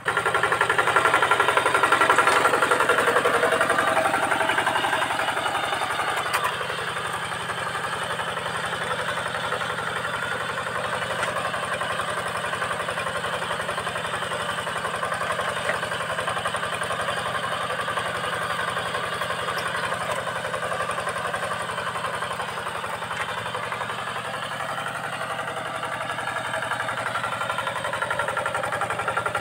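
Single-cylinder diesel engine of a two-wheel hand tractor running steadily with a fast, even chugging beat as it pulls a rake harrow through dry soil. It is louder for the first several seconds, then settles to a steady level.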